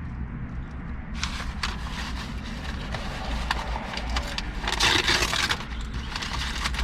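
Paper sandwich wrapper rustling and crinkling in irregular bursts as a fried chicken sandwich is unwrapped, over a steady low rumble of passing traffic.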